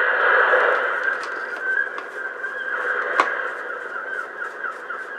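Seagulls calling and squawking in the background, loudest in the first second. Scattered clicks and one sharp snap about three seconds in come from the ice maker being taken apart.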